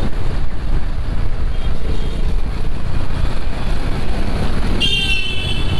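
Motorcycle on the move: steady engine and road rumble with wind buffeting the microphone. A brief high-pitched tone sounds about five seconds in.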